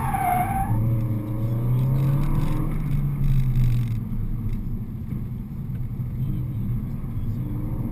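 Renault Mégane RS's turbocharged four-cylinder engine running, heard inside the cabin; the engine note holds steady for about four seconds, then drops and quietens as the car eases off.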